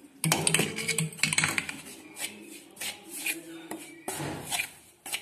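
Steel slotted spoon scraping and stirring damp wheat flour in a metal pan, a run of irregular scrapes and clinks, as sprinkled water is worked into roasted flour to make it crumbly for puttu.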